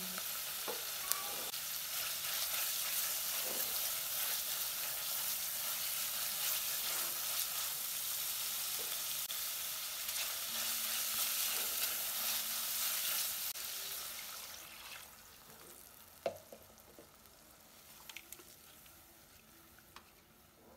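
Diced chicken, onion and garlic sizzling as they fry in butter in an enamel pot, stirred with a spatula that scrapes and taps against the pot a few times. The sizzle dies down about three-quarters of the way through.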